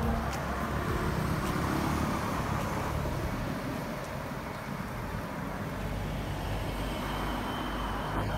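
Road traffic: a car passing close by in the first couple of seconds, then steady traffic noise.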